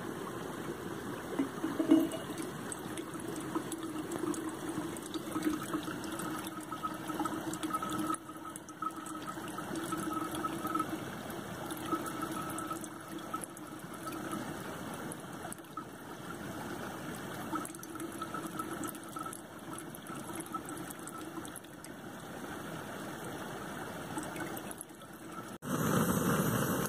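Water trickling steadily from a squeeze-pouch water filter into a stainless steel bottle. About a second before the end it switches to a louder steady rush from the canister stove under the pot.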